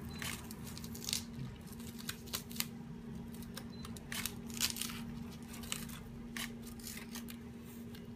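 Kitchen scissors snipping through a king crab's gill filaments: a series of irregular, crisp snips and clicks, over a faint steady hum.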